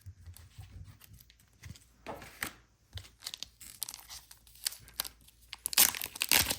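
Trading cards and their packaging being handled: scattered rustles and small clicks, then a louder burst of crinkling and tearing of packaging near the end.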